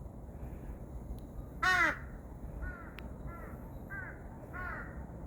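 A pet animal calling: one loud call about a second and a half in, then a run of four shorter, softer calls of the same arched shape.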